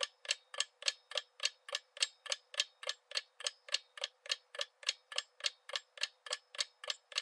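Countdown-timer clock-ticking sound effect: a steady, even tick at about three and a half ticks a second.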